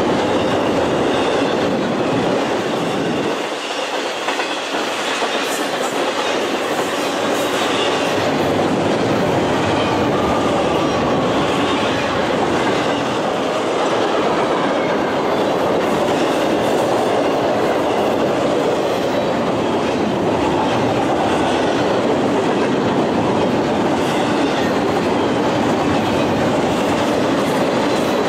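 Norfolk Southern intermodal freight train passing close by: steady noise of the cars' wheels rolling over the rails as flatcars loaded with truck trailers and containers go by.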